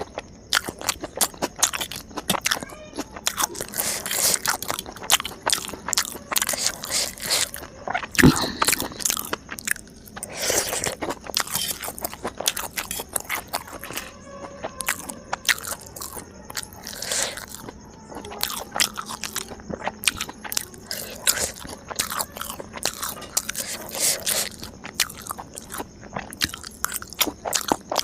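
Close-miked eating: crunchy bites and chewing of food, dense irregular crackles with louder crunches here and there.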